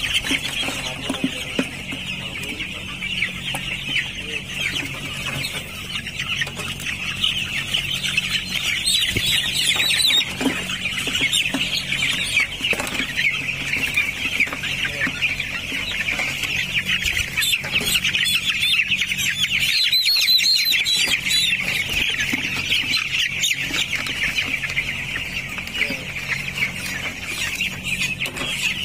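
A large flock of 12-day-old broiler chicks peeping continuously, many voices at once in a dense, unbroken chorus. A low steady hum runs underneath.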